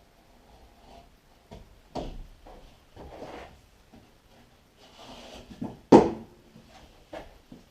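Irregular knocks and short scraping strokes as drywall is worked by hand to cut out the outlet openings, with one sharp, loud knock about six seconds in.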